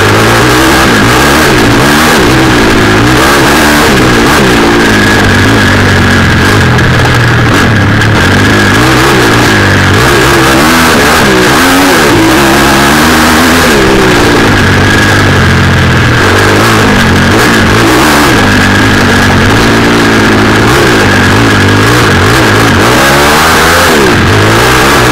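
Small four-stroke off-road engine, new and in its running-in hours, revving up and down over and over as the vehicle rides a rough grassy track. It is loud throughout, with a steady high-pitched whine over it.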